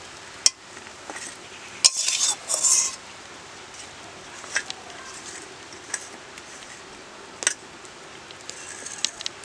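A spatula scraping and clinking against a stainless steel bowl as a thick, dry-cooked green pea paste is pressed and spread in it. There are a handful of sharp clinks spread out, and a longer scraping run about two seconds in.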